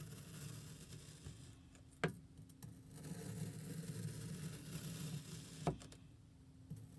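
A chef's knife slicing down through kinetic sand with a soft, gritty hiss, and the blade clicking sharply against the table twice, about two seconds in and again about five and a half seconds in.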